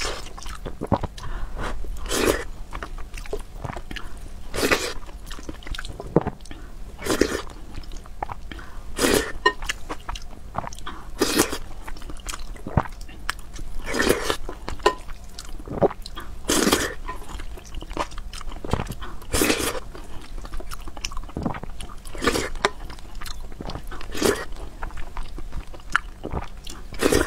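Close-miked eating: chewing and wet mouth sounds from spoonfuls of a minced, rice-like dish, with louder bursts every two to three seconds and small clicks in between.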